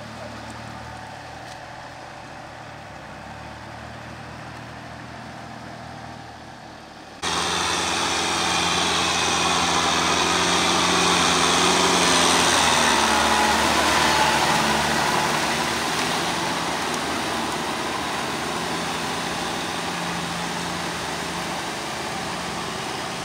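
Diesel tractor engines running in a wet rice paddy. The sound is steady and moderate at first, then suddenly louder about seven seconds in as a Kubota tractor drives close through the mud, swelling as it passes and slowly fading as it pulls away.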